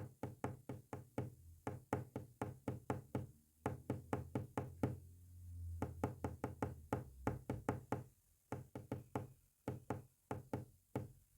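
Quick sharp knocks or taps in irregular groups with short pauses between them, the rhythm of Morse code being tapped out. A low hum swells up briefly near the middle.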